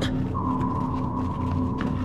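Background music: a held high note enters about a third of a second in over a steady low drone.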